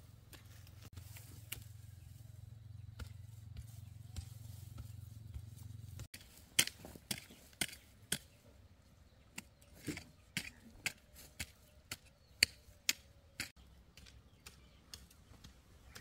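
A low steady rumble, then from about six seconds in a run of sharp, irregular knocks and taps, roughly two a second, that stop near the end.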